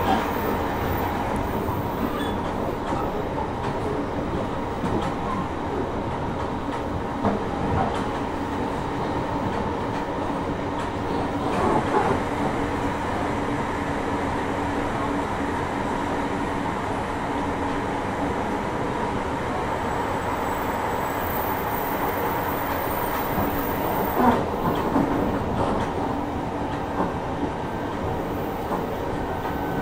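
Running noise heard from inside a JR Hokkaido 733 series 3000-subseries electric train at a steady speed: a continuous rumble of wheels on rail with a faint steady hum. A few separate wheel knocks over the rails break it.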